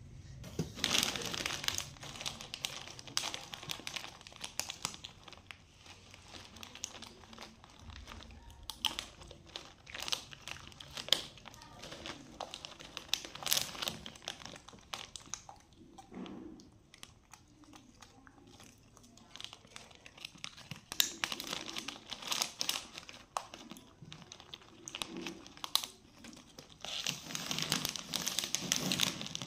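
Plastic snack bag crinkling in spells as a hand rummages in it for crispy spiral crackers, with crisp snacks crunching between the spells.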